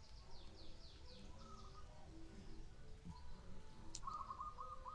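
Caged zebra doves (perkutut) cooing faintly, several birds overlapping, with a run of high, quick falling chirps in the first second or so and a fast string of repeated notes near the end.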